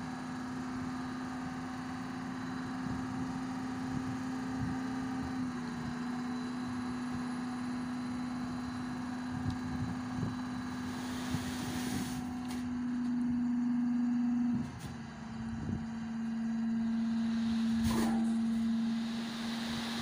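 Tipper truck running steadily while its hydraulic hoist tips the bed, a steady hum that dips for a moment about two-thirds of the way through. From a little past halfway the load of soil slides out of the bed with a growing rushing noise and a couple of knocks.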